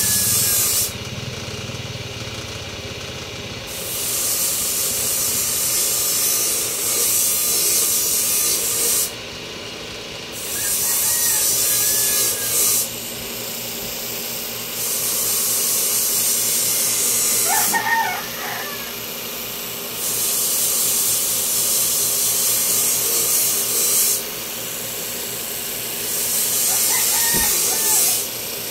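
A power tool running in about six loud, hissing passes of a few seconds each, dropping back to a quieter steady running between them. A rooster crows about two-thirds through and again near the end.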